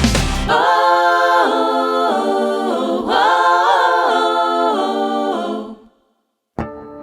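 Unaccompanied voices singing sustained chords in harmony, a cappella, fading out shortly before the end. A new piece of music with sustained tones begins in the last half second.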